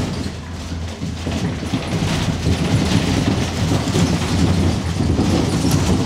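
Earthquake simulator running its replay of the 2011 Tohoku earthquake: a loud, continuous low rumbling with rattling as the mock room shakes.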